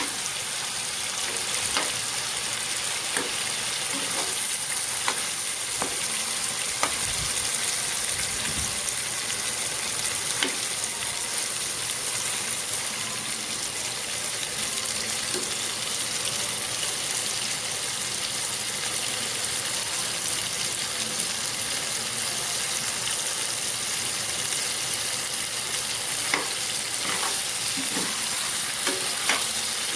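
Chicken pieces frying in hot oil in a pan: a steady sizzle with small pops and scattered clicks of stirring as they brown.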